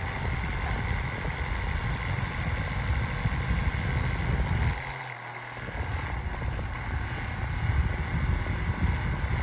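Holmes Blizzard oscillating table fan running on high: a loud, noisy rumble with a steady high tone over it. The low rumble drops away for about a second near the middle. The noise is the sign of a badly running fan.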